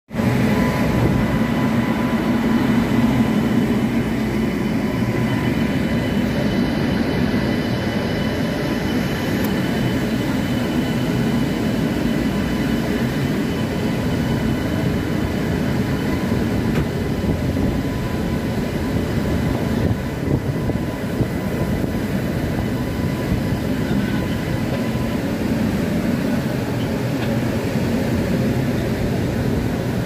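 Freight train running along the track: a loud, steady rolling rumble of wheels and wagons, with a faint steady whine above it.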